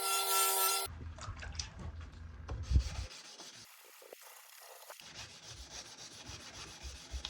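Hand sanding a steel knife blade: scratchy rubbing strokes in short edited clips, after a steady machine whine cuts off just under a second in, with one sharp knock a couple of seconds later.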